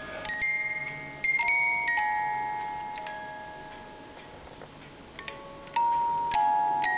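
Wind-up music box in an ornate metal jewelry box playing a slow tune, its plucked steel-comb notes each starting sharply and ringing out as they fade.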